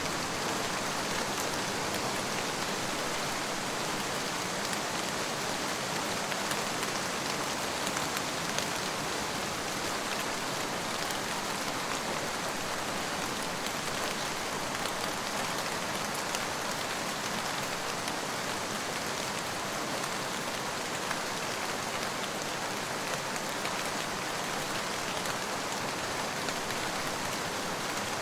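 Steady rain falling, an even hiss with fine scattered drop patter.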